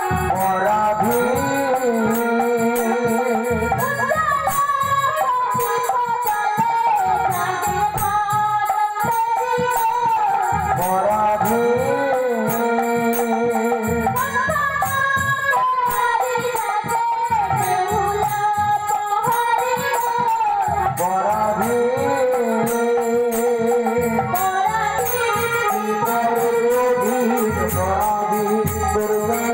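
Live traditional Bengali folk-theatre music: a melody in phrases that repeat every few seconds over a steady percussion beat.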